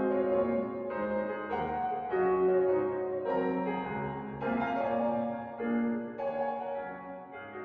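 Background piano music, slow, with held notes that change about once a second.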